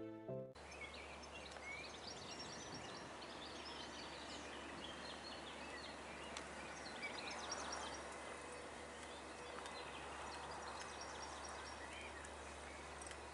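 Music cuts off in the first half second. Then many small birds chirp in the trees over a low, steady background hum.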